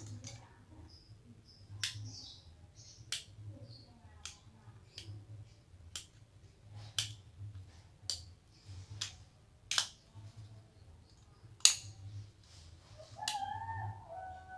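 Sharp, irregular clicks and taps from handling an LED lamp board and small tools on a workbench, about one a second, over a faint hum. A cat meows near the end.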